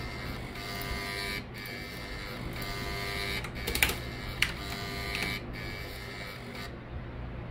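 3.5-inch floppy drive's head stepper motor buzzing at a series of different step speeds, each a steady tone of its own pitch, changing about once a second with short breaks between. Two sharp clicks come near the middle, and the buzzing stops shortly before the end, leaving a low hum.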